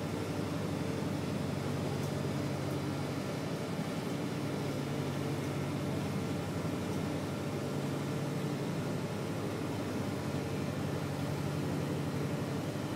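Towboat's diesel engines running steadily while pushing loaded barges: a constant low drone with a steady hum, heard from inside the wheelhouse.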